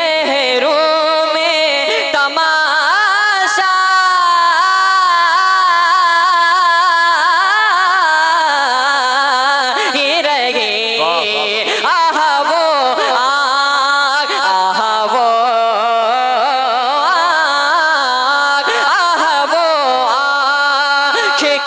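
A boy singing a naat into a microphone: a long melodic vocal passage of held notes that waver and glide up and down without a break.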